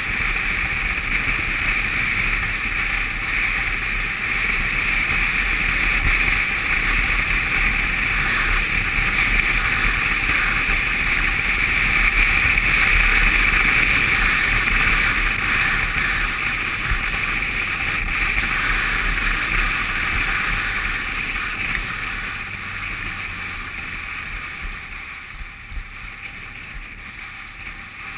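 Wind rushing over the camera on a moving adventure motorcycle, with engine and tyre noise from the bike underneath, as it rides a wet dirt road. The noise is loudest around the middle and eases off over the last few seconds as the bike slows.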